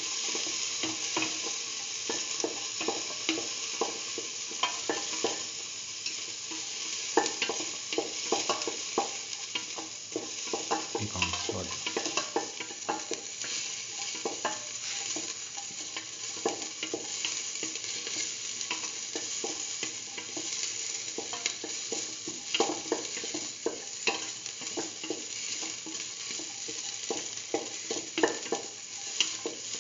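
Shallot pieces sizzling in hot oil in a stainless steel pan, being stirred, with a utensil repeatedly scraping and clicking against the metal.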